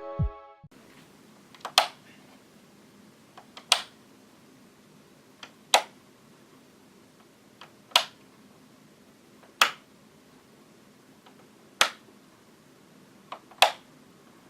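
Light switch flicked on and off repeatedly: seven sharp clicks, about one every two seconds. Several have a fainter click just before them.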